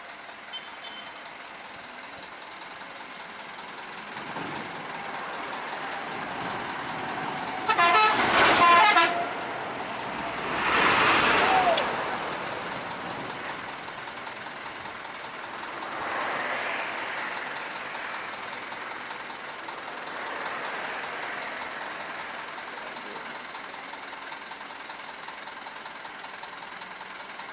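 Road traffic going by, with a vehicle horn blaring for about a second some eight seconds in, the loudest sound, followed by a loud rush as a vehicle passes. Further vehicles pass more quietly later on.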